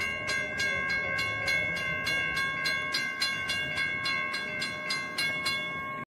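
Railroad grade-crossing warning bell ringing with about three strikes a second while the crossing gates rise and the lights flash. The strikes stop near the end and the bell's tone rings on briefly, as the crossing clears.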